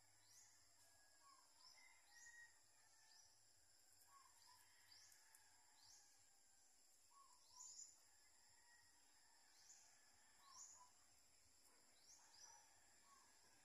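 Faint outdoor animal chorus, likely insects: a steady high trill, short rising chirps repeating about once a second and often in pairs, and soft lower calls now and then.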